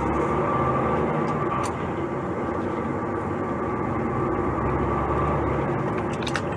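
Semi-trailer truck's diesel engine droning steadily, heard from inside the cab as the truck moves off slowly, with a couple of light clicks from the cab.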